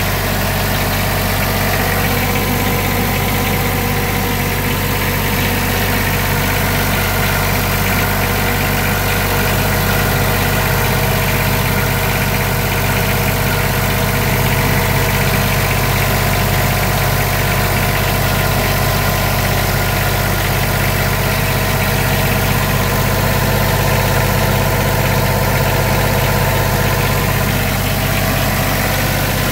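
Wacker Neuson light-tower generator running steadily, engine and alternator at an even pitch that does not change.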